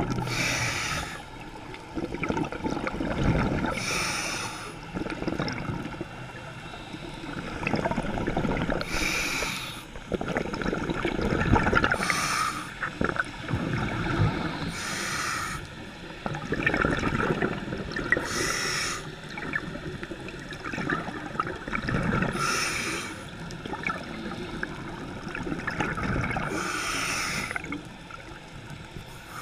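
Scuba diver breathing through a regulator underwater: a hissing inhale about every three to five seconds, eight in all, with bubbly, gurgling exhales between, heard through the camera's waterproof housing.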